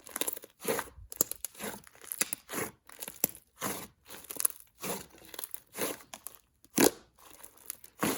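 Hands squishing and folding a clay-mixed slime, slightly rubbery, giving short crackly, sizzling pops about twice a second.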